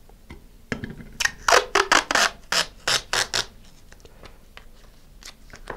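Masking tape being pulled off its roll in a quick series of short rips, about eight in under three seconds, followed by quieter handling of the tape.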